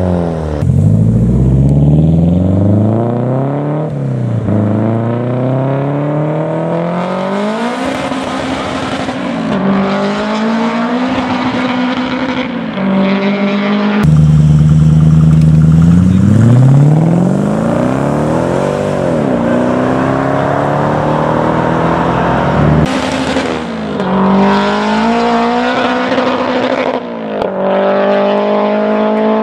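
Car engines accelerating hard, the pitch climbing and then dropping sharply at each gear change, again and again. The sound breaks off abruptly twice and picks up again at a different pitch.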